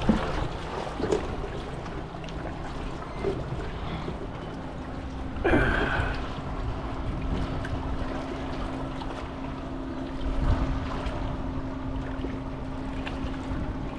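Outdoor wind and water noise on the microphone, with a brief louder sound about five and a half seconds in and a steady low hum from about six seconds on.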